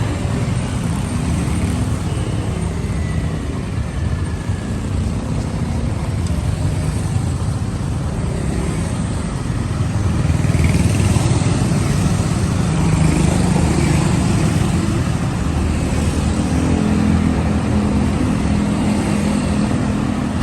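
Steady city traffic noise, a continuous low rumble of vehicles that swells slightly about halfway through.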